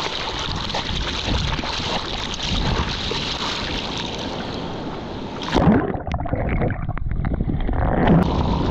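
Water splashing and rushing over a surfer's GoPro microphone as he paddles out on a surfboard. About five and a half seconds in a loud splash as he duck-dives under a wave, and the sound goes muffled and gurgling underwater, clearing again with a splash near the end as he surfaces.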